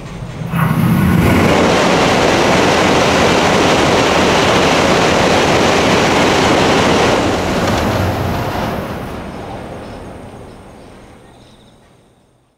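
N700-series Tokaido Shinkansen train crossing the bridge at high speed, heard from beneath the deck. A loud rushing rumble starts suddenly about half a second in and holds steady for about six seconds, then dies away and fades out at the end.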